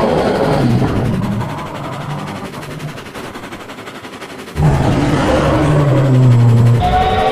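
Monster freight-train creature sound effect: a loud, rough rattling noise over a low drone. It dies down after about a second and a half, then comes back suddenly about four and a half seconds in. Near the end a chord of train horns starts to sound.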